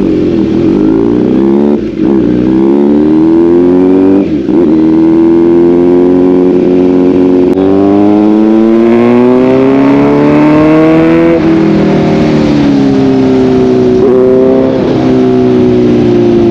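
Motorcycle engine accelerating hard through the gears, loud and continuous; its pitch climbs steadily and then drops sharply at each of several upshifts.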